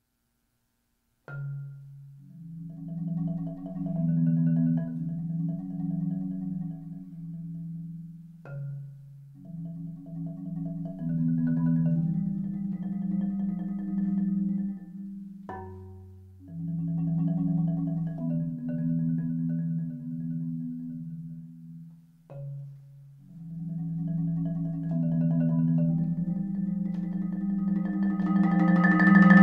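Solo marimba played with four mallets: sustained low chords with higher notes above, starting about a second in, in phrases with short pauses between them, growing louder near the end.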